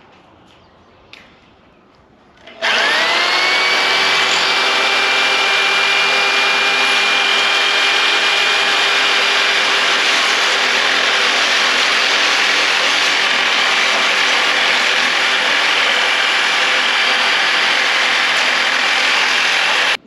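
Corded electric double-cut sheet metal shear starting up about two and a half seconds in, its motor whine rising quickly and then holding steady, loud, as it cuts along a ribbed metal roofing panel; it stops abruptly at the end.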